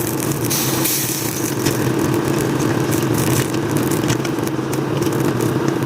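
Meat cooking down in a pot on the stove: crackling and occasional spoon scrapes and clicks against the pot over a steady low hum.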